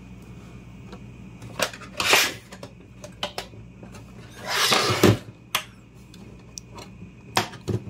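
Plastic case of a Tektronix TBS 1052B oscilloscope being handled and tipped onto its end: scattered clicks and knocks, with a longer scrape about four and a half seconds in.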